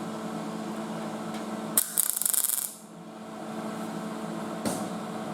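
Welder crackling for under a second, about two seconds in, as it puts a spot weld into car body sheet metal. A click comes just before the weld and another near the end, over a steady hum.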